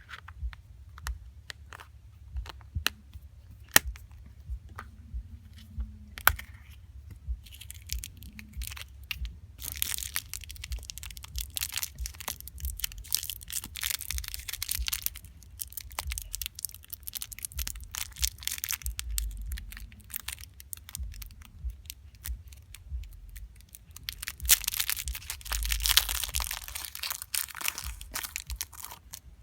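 Small toy wrapping being crinkled and torn by hand in two long stretches, with scattered small clicks and taps of handled plastic toys between them.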